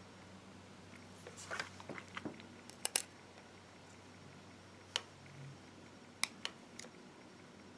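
Faint small clicks and taps of hand tools and small parts during a smartphone teardown. There is a patter of light taps about a second and a half in, two sharp clicks around three seconds, and single clicks near five seconds and again twice past six seconds.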